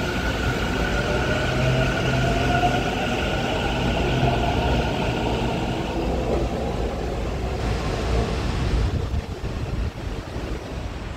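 Taichung MRT Green Line electric train pulling out of the station. The traction motors give a rising whine over a low rumble, which fades after about six seconds as the train draws away.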